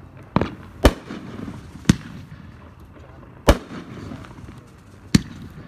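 Nishiki Rush 30-shot 500 g fireworks cake firing: five sharp reports at uneven intervals, the first two close together and the last three about one and a half seconds apart.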